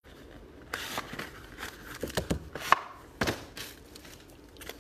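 Small cardboard trading-card boxes being handled and set down on a table: a run of light knocks and taps, the sharpest just under three seconds in.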